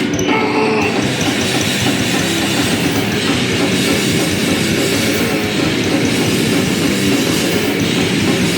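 Live harsh noise set through a PA: a loud, dense, continuous wall of distorted amplified noise with no clear beat.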